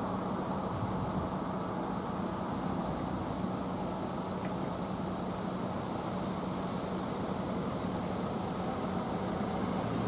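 Waiting cars' engines idling at a railway level crossing as the barriers rise, with a continuous high insect buzz over them. Near the end the engine sound grows as the cars begin to move across.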